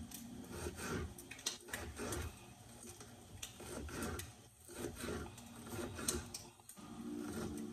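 Kitchen knife chopping an onion on a cutting board: a run of quick, irregular taps of the blade hitting the board.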